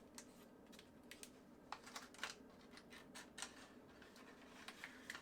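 Faint, scattered clicks and light taps of small objects being handled, over near silence.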